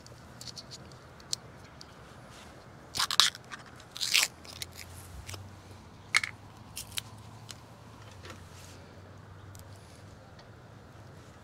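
Plastic screw lid of a Berkley PowerBait dough-bait jar being twisted open and handled: a few short crackling clicks and scrapes, the loudest about three and four seconds in, then smaller ones.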